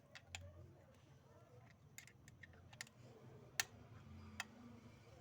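Near silence with a faint low hum and scattered faint clicks and taps, the sharpest about three and a half seconds in.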